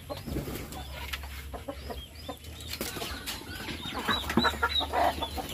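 Native chickens clucking, with many short, high chirps over them, growing busier and louder about four seconds in.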